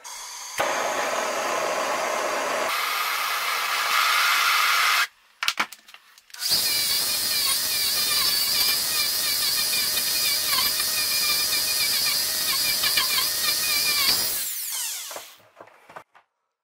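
Hand-held gas torch burning with a steady hiss while heating a key. The flame cuts out about five seconds in, a few sharp clicks follow, then it burns again with a wavering whistle in the hiss and dies away near the end.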